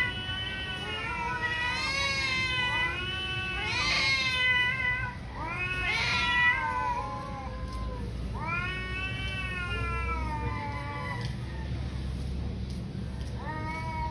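Two cats facing off and yowling: a string of long, wavering, drawn-out yowls one after another, the aggressive caterwauling that comes before a cat fight. The yowling stops about eleven seconds in, with one short yowl near the end.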